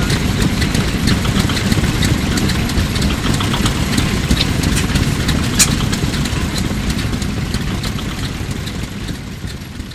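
Engine of a truck-mounted crane running steadily while it holds a load, with scattered metallic clicks and clinks over it and one sharper click about halfway through; the sound fades out near the end.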